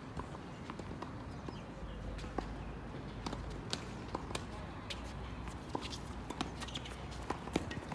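Racket-sport doubles play: irregular sharp taps and clicks of racket hits, ball bounces and footsteps, several a second, over a murmur of voices.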